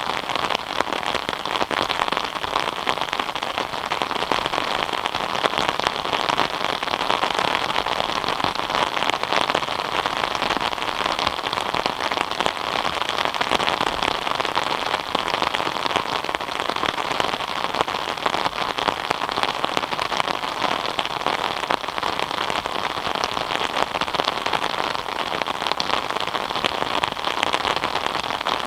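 Steady rain falling, a dense even patter of drops on surfaces without let-up.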